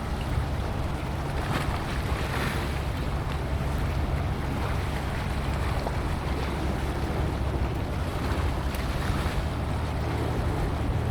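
Steady low drone of a ship's engine out on the water, under wind buffeting the microphone.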